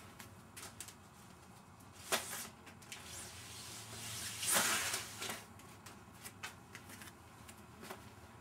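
Plastic wrapping being handled and pulled off, rustling and crinkling with scattered light clicks and knocks; the loudest rustle comes about four and a half seconds in.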